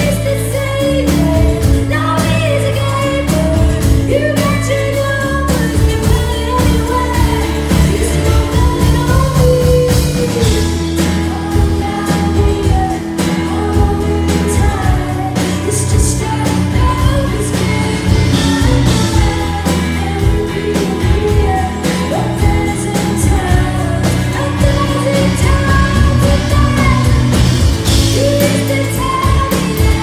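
Live performance of a song: a woman singing over a strummed acoustic guitar, backed by drums, heard from among the audience.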